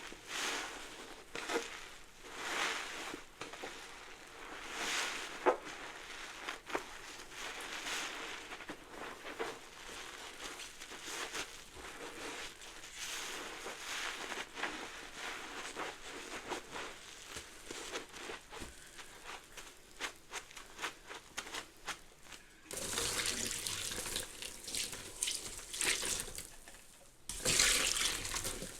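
A sponge full of Fabuloso and Mr. Bubble suds being squeezed again and again, each squeeze a short crackling, fizzing hiss of popping bubbles. Near the end the squeezing turns louder and wetter, ending in one strong squelch.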